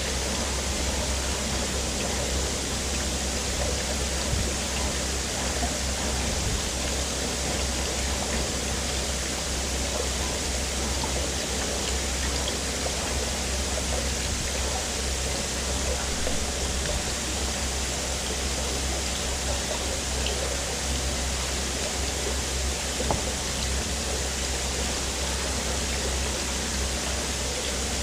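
Steady rushing background noise with a low hum underneath, at an even level throughout, with a few faint clicks.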